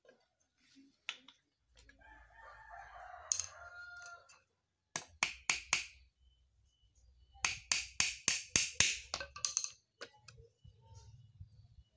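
A small hammer knocking thin nails into the light wooden slats of a cage frame: a quick run of about five strikes about five seconds in, then a longer, faster run of about a dozen. Before the hammering, a rooster crows once, more faintly.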